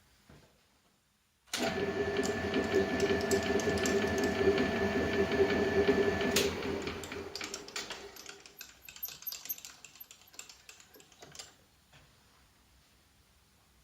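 Homemade belt sander's electric motor switched on suddenly, running for about five seconds with a steady hum and rapid ticking, then switched off and coasting down over a couple of seconds as the ticking thins out.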